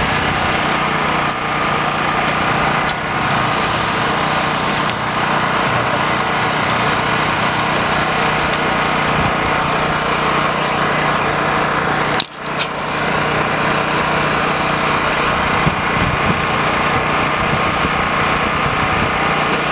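A small engine running steadily, with a click and a sudden brief drop in level about twelve seconds in.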